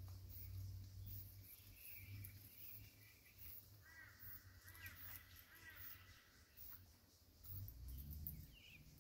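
Faint bird calls: a brief high call about two seconds in, then a short run of four repeated arched notes about four seconds in, over a low rumble that fades and comes back near the end.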